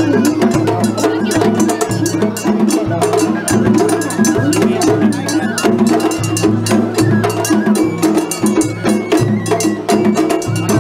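Japanese festival float music (matsuri-bayashi): drums and a small hand gong struck in a quick, steady rhythm, with a pitched melody over them.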